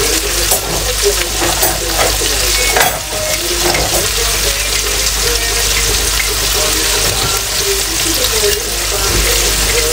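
Flour-coated chicken pieces frying in hot oil in a stainless steel pan, a steady sizzle, while a wooden utensil stirs and turns them.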